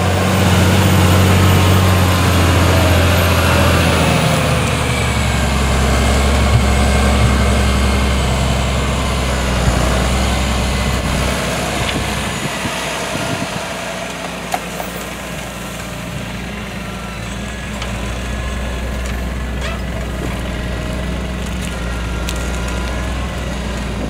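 Fendt 936 Vario tractor's diesel engine running steadily under load while pulling a Lemken Juwel 8 reversible plough through the soil. The engine note shifts a couple of times.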